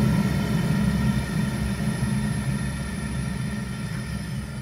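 Zhukovsky 23 gas heating boiler's burner running with a steady low rumble that slowly gets quieter. With the gas tap opened further, the grunting and clicking it makes at about half tap is gone.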